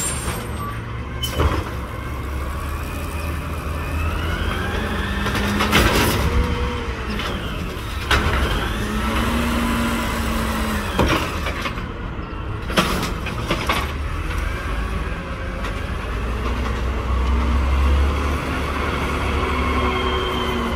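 Automated side-loader garbage truck working at the curb: its diesel engine running steadily while the hydraulic arm whines up and down, grabbing and tipping a trash cart, with several sharp bangs as the cart knocks against the truck. The engine grows louder near the end as the truck moves off.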